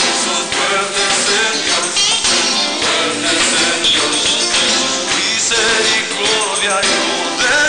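Live worship band playing an upbeat song, a tambourine shaking along with the beat and voices singing.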